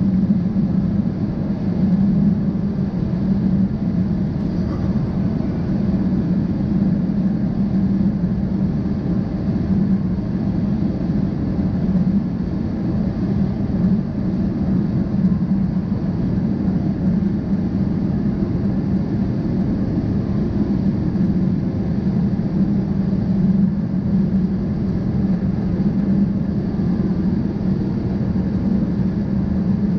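Jet airliner cabin noise in flight: the steady drone of the engines and airflow heard from a window seat over the wing, an even rumble with a strong low hum and no changes.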